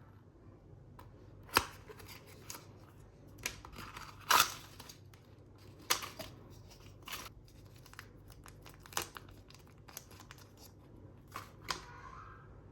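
Scattered clicks and taps with a few short rustles: small objects being handled, likely the mics and their packaging.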